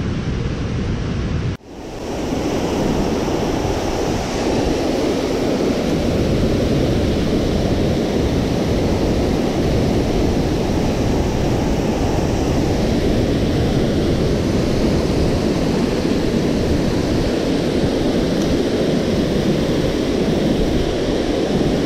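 Steady roar of a 200-foot waterfall heard close to its base, with a brief break in the sound about a second and a half in.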